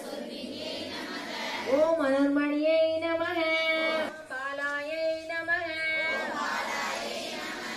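Female voices singing a devotional song for the lamp worship, each line sung as long held notes that begin with a short upward scoop in pitch.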